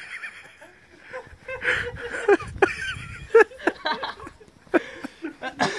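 People laughing and chuckling in short bursts.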